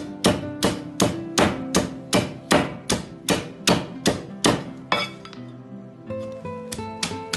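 Cleaver chopping braised goose on a thick wooden chopping block: steady, even chops about three a second, pausing about five seconds in, then a few lighter chops near the end.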